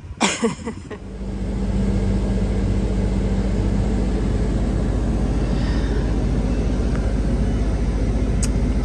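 A vehicle engine comes up about a second in, then runs steadily with a low, even rumble.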